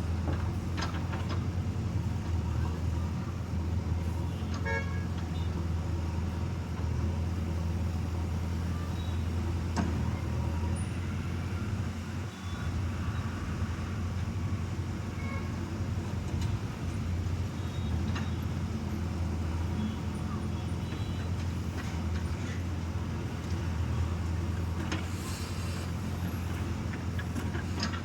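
Diesel engine of earthmoving machinery running steadily with a low, even drone, with a few faint knocks, and a brief dip in the engine sound about twelve seconds in.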